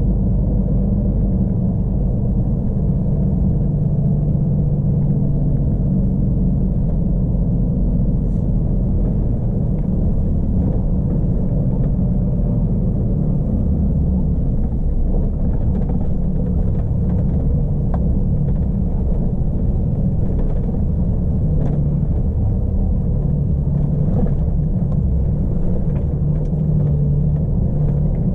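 Iveco S-Way's 12.9-litre Cursor straight-six diesel running steadily under way, a deep low hum mixed with road noise. A few faint clicks come through in the second half.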